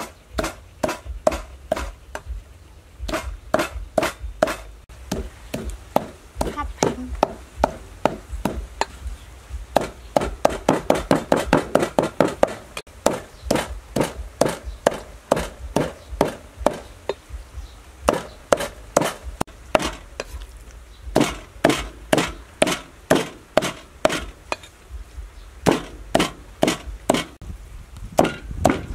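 Cleaver chopping pork into mince on a thick round wooden chopping board: a steady series of knocks, two or three a second, quickening to a fast run of about five a second partway through.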